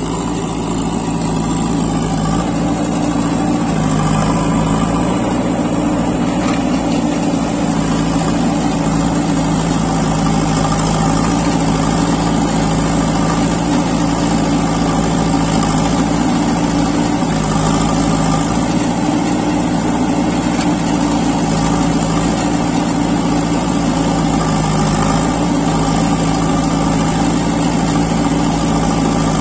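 JCB backhoe loader's diesel engine running steadily at close range while its backhoe arm digs soil.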